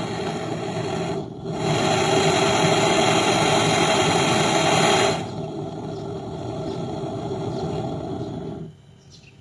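Gas brazing torch flame hissing steadily on a refrigerator's copper pipe joint, with a brief dip about a second in. It is quieter and duller from about five seconds in, and stops shortly before the end.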